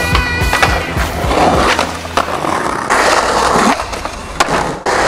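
Skateboard wheels rolling on concrete in stretches, broken by sharp clacks of the board's tail popping and the board landing, with the loudest clack near the end.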